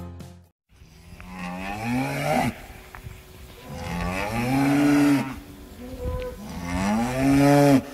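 A cow mooing three times, each call long and rising in pitch before it levels off, with short pauses between them.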